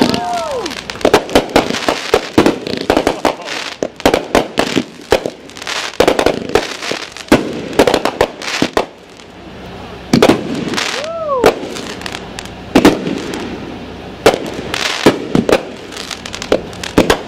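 Aerial firework shells bursting in a dense barrage of sharp bangs and crackle, with a brief whistle about eleven seconds in.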